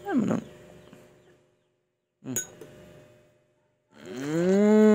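A short spoken "Ayun" at the start, then quiet. About four seconds in, an adult's long drawn-out "wooow" of praise begins: one held vocal sound whose pitch rises and then levels off.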